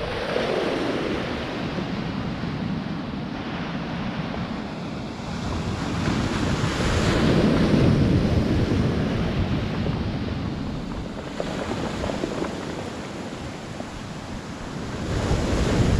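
Sea waves breaking and washing over a pebble beach, rising and falling as each wave comes in and loudest about eight seconds in, with wind buffeting the microphone.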